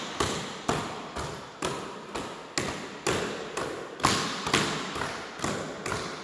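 Palms slapping rubber basketballs held overhead, several players at once: a sharp slap about twice a second, each one ringing out in the echoing gym.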